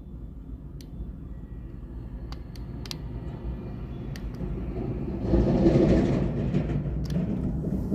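Excavator at work: its diesel engine rumbling under load and growing louder, swelling to its loudest about five seconds in with added hiss, while sharp clicks and clanks come and go.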